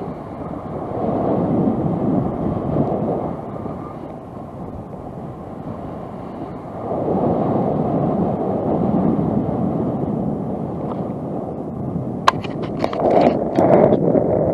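Wind rushing over the microphone while cycling along a road, swelling and easing, with a few sharp clicks and rattles near the end.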